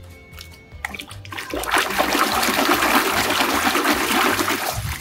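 Water rushing and splashing, starting about a second and a half in, as mud is washed off a plastic toy elephant.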